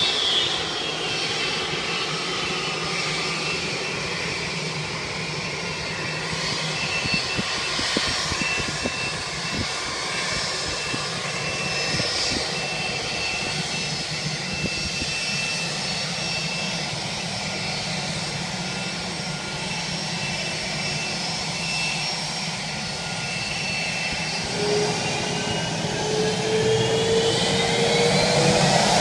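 Boeing 767-300 jet engines running on the ground with a steady whine. Over the last few seconds the whine rises in pitch and grows louder, as an engine spools up.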